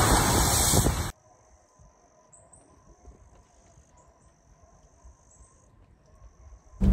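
A pickup truck driving through deep water on a flooded dirt road, the spray rushing and splashing loudly for about a second before cutting off abruptly. Then faint high-pitched chirping over quiet woods.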